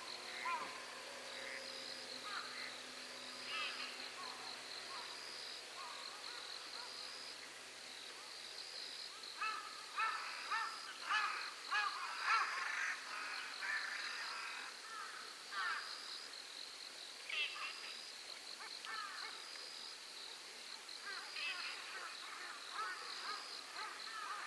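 Night-time lakeside chorus: a high insect note pulses about once a second throughout. Over it come bouts of short, rapid animal calls, with a dense flurry near the middle.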